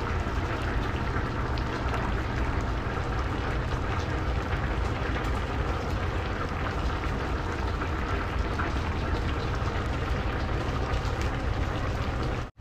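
Coconut-milk stew of vegetables and tilapia simmering in a pan on the stove: a steady bubbling hiss with fine crackling pops over a low rumble, cutting off sharply near the end.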